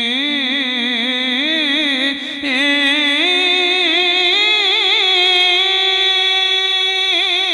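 A man singing Punjabi Sufi verse in a slow, ornamented line: a held note breaks into a wavering melisma that climbs in pitch through the middle and settles lower near the end, with a short breath about two seconds in.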